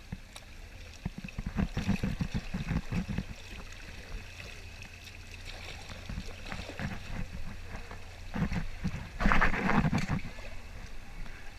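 Kayak on a river: paddle strokes splashing and water gurgling around the boat, in uneven bursts, loudest about nine seconds in.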